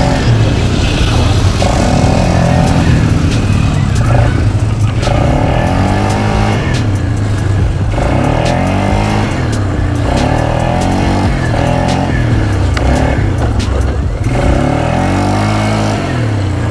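Polaris quad bike's engine revving up and easing off over and over as it is ridden, its pitch rising and falling every second or two.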